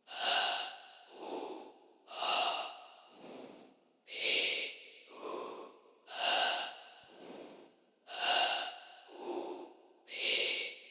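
Artificial breathing effect: vocalizations filtered into a reverb and gated by a Soundtoys Tremolator at a half-note rate. The pattern repeats about every two seconds, a bright, airy swell followed by a duller, lower one, like a slow breath in and out.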